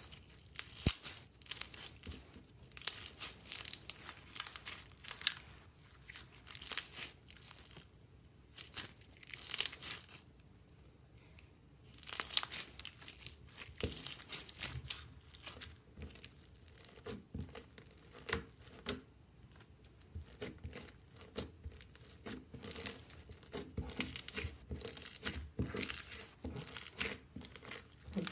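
Slime being squeezed and stretched by hand, crackling and popping in irregular spells, with a lull of about two seconds midway.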